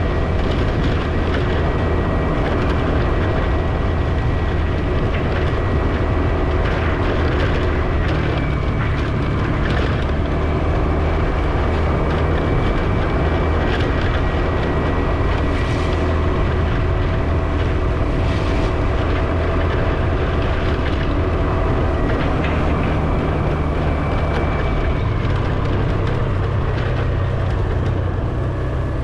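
Engine and road noise of a vehicle being driven, a steady low hum whose pitch shifts slightly about eight seconds in and again near the end.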